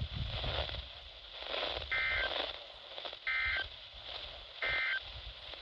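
Three short bursts of EAS end-of-message data tones (the two-tone NNNN code) over NOAA Weather Radio, about a second apart, with receiver hiss between them. They mark the end of the severe thunderstorm warning message.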